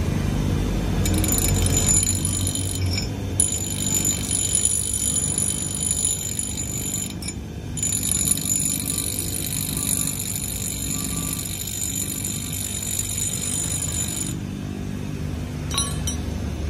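Japanese-made bench grinder with two 205 mm stones and a 620 W, 100 V single-phase motor running free with no load: a steady motor hum, with a thin high whine over it from about a second in until near the end.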